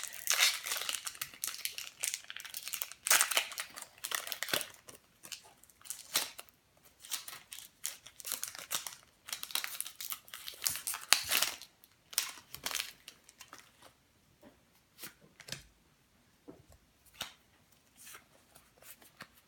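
Foil wrapper of a Pokémon booster pack being torn open and crinkled in the hands, then playing cards sliding and snapping as they are leafed through. The crinkling is dense for most of the time, and the card clicks come more sparsely near the end.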